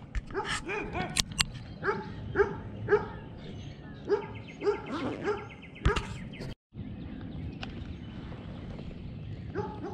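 An animal calling in short, evenly repeated yelps, about two a second. The calls stop about halfway through and start again near the end.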